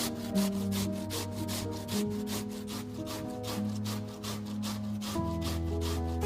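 Background music with a quick, steady percussive beat over held bass and chord notes that change every second or two.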